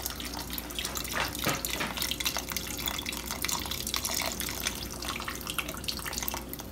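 Chicken broth pouring from a carton in a thin stream into a pot of diced potatoes and liquid, trickling and splashing unevenly.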